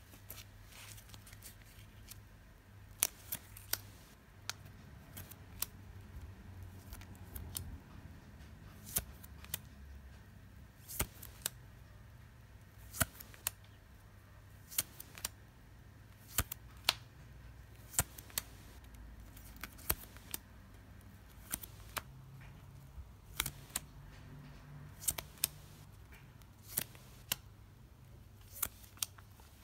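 Trading cards being handled one at a time: sharp clicks and snaps every second or two as each card is slid off a thick stack and laid on another pile.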